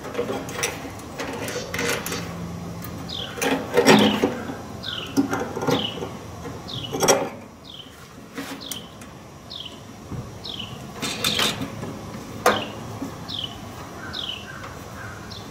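Small metal hardware clinking and knocking against a microwave's sheet-metal chassis as a nut and bolt are fitted by hand, loudest about 4 and 7 seconds in. Through the middle, a bird repeats a short, high, falling chirp about twice a second.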